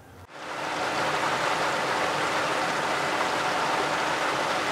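Pool pump driven by a Century V-Green variable-speed motor running steadily: an even rushing, water-like noise with a faint steady hum, coming up over about the first second.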